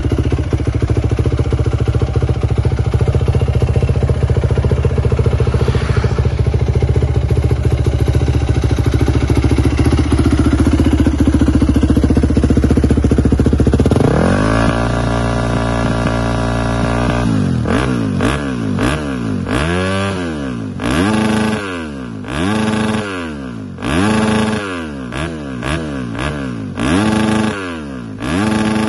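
2012 Yamaha WR250F's 250 cc single-cylinder four-stroke engine idling steadily, then revved up about halfway and held high for a few seconds. After that it is blipped about ten times, each rev rising and falling back, roughly once a second.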